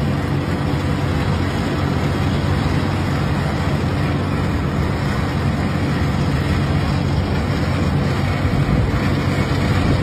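Heavy diesel engines of an asphalt paver and a tipper truck unloading into it, running steadily: an even low hum with a broad rushing noise over it.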